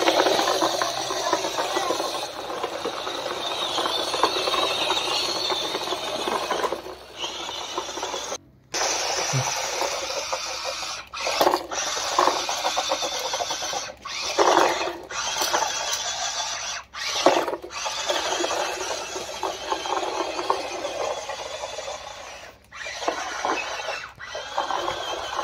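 Whirring of a toy RC stunt car's small electric motors and plastic gearboxes, working under the load of towing a toy dump truck. The whirr stops and starts again several times.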